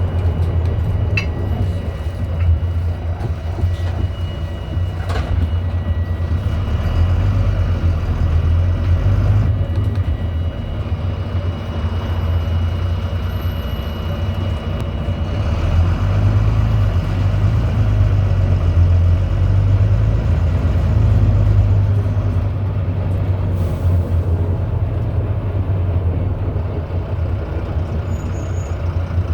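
Inside a Volvo B9TL double-decker bus on the move: steady low rumble of its diesel engine and ZF Ecolife automatic driveline, swelling and easing with the road. A faint constant high beep runs over it, which the uploader puts down to something loose, such as a panel, at the back of the bus.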